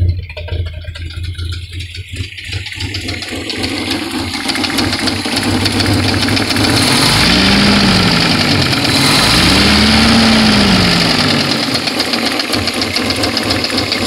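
1970 Opel GT four-cylinder engine idling with a fast, light clicking running through it, a clicking the owner hears at idle that goes away at higher rpm. It is heard first at the tailpipes, then from the open engine bay. Near the middle it is revved up and back down twice.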